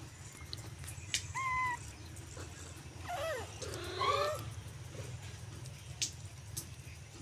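Cats meowing: a short high mew about a second and a half in, then two longer, lower meows around three to four seconds in. A few light clicks sound over a steady low hum.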